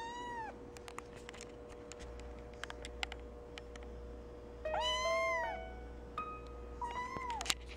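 Tabby kitten meowing three times close to the microphone, the loudest call about five seconds in, with scattered light clicks between the calls.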